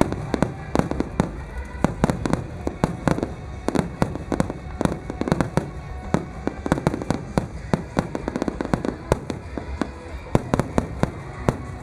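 A rapid barrage of fireworks shells bursting: many sharp bangs in quick, irregular succession, several a second, without let-up.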